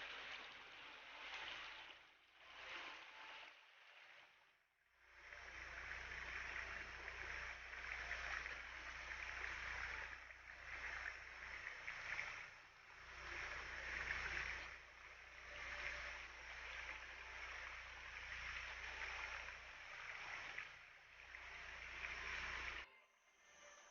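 Faint, steady rush of water, swelling and easing every couple of seconds, that cuts off abruptly near the end.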